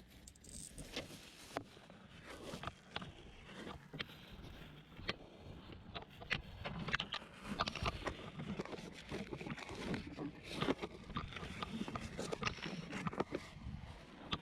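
Curbside junk being handled and rummaged through: irregular clicks, knocks and light clatters, coming more often in the second half.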